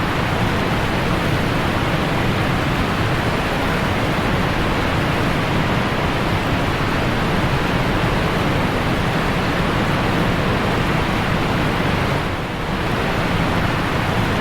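Creek waterfall pouring, a loud steady rush of falling water, dipping briefly about twelve seconds in.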